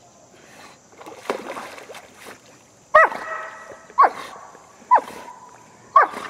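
A dog barking: one softer bark, then four sharp, loud barks about a second apart, each dropping in pitch.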